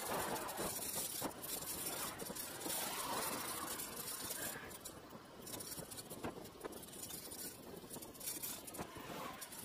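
A lorry passing close alongside a bicycle, its engine and tyres loudest over the first few seconds and then fading, over steady road and wind noise with many small rattling clicks from the moving bike.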